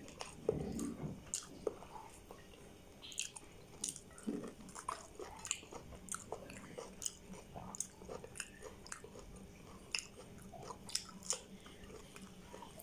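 A person chewing and smacking a mouthful of rice and prawn curry eaten by hand: a steady run of short, wet mouth clicks and smacks.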